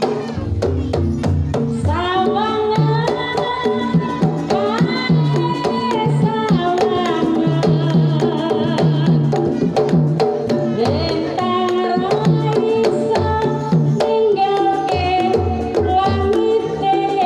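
A sinden singing a long, ornamented Javanese melody over Banyumasan gamelan, with kendang hand-drum strokes and bronze gong-chime kettles. Her voice comes in about two seconds in and wavers with vibrato near the end.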